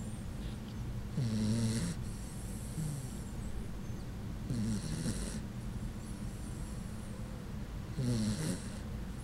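A sleeping puggle snoring: three pitched, human-like snores about three and a half seconds apart, each with a breathy hiss.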